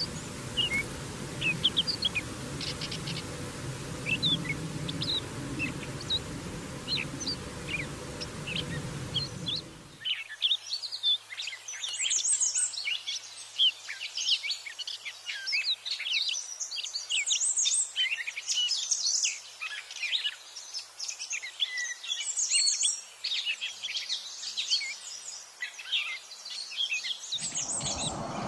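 Gray catbird singing: a long, rambling run of quick, varied squeaky and whistled phrases, starting abruptly about ten seconds in. Before that, scattered short bird chirps over a steady background hiss and hum.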